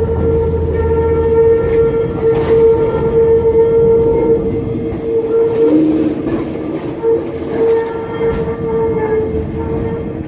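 Historic tram's steel wheels squealing on the rails: a loud, steady squeal made of several tones at once. It wavers and shifts pitch briefly around the middle, then carries on and breaks off near the end.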